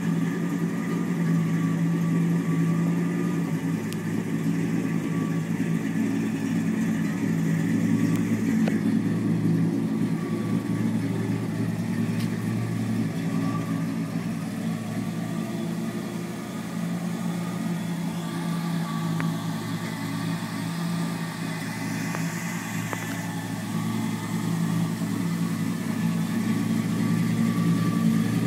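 1969 Buick Riviera GS's 430 V8 idling steadily through Flowmaster mufflers, a low, even exhaust note with no revs.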